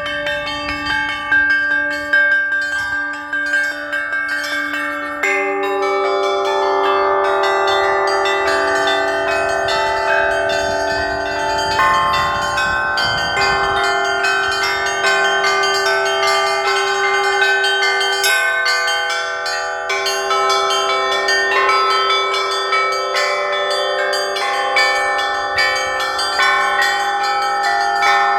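Russian-style church bell ringing (zvon), played together with struck bila: a quick pattern of many overlapping ringing strokes. About five seconds in, deeper and louder bells join the higher ones and keep sounding through to the end.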